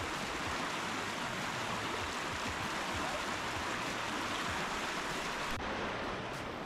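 Steady rush of river rapids: shallow whitewater running over rocks on the Huron River.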